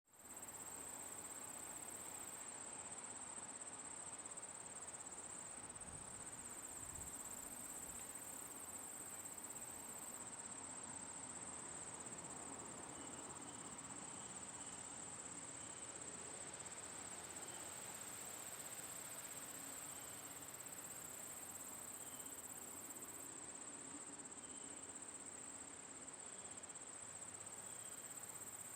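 Steady, unbroken high-pitched insect chorus, a continuous trill that holds one pitch without pause.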